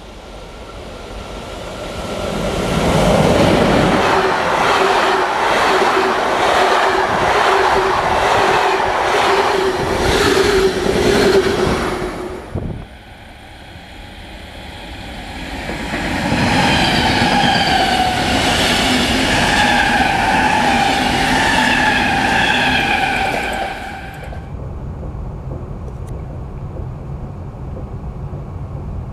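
Electric trains passing close by: first a train comes in and runs past with rhythmic wheel clicks and a steady hum, cutting off suddenly about 12 seconds in. Then a second loud passage whines at several steady pitches. From about 24 seconds in there is an even, quieter rumble of riding inside a moving train.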